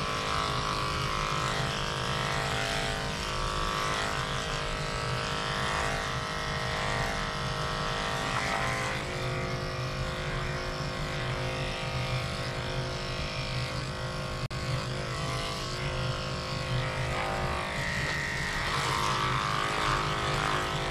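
Cordless electric dog-grooming clippers running steadily with a motor hum as the blade is worked through long white fur on a dog's leg.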